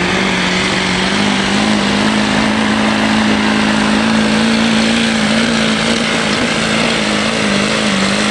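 Duramax V8 turbodiesel pickup at full throttle under heavy load, dragging a pulling sled. It gives a loud, steady drone that holds nearly one pitch.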